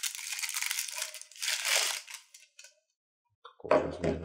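Thin plastic bag crinkling and rustling as an antenna is pulled out of it, stopping after about two seconds; near the end, a single sudden knock, the loudest sound.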